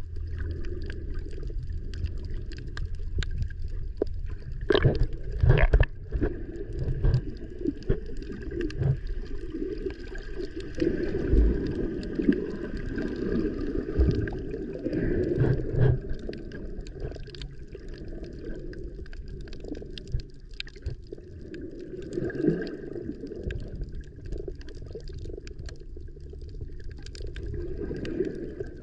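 Muffled underwater sound of sea water moving and gurgling around a submerged camera, with scattered small clicks and knocks.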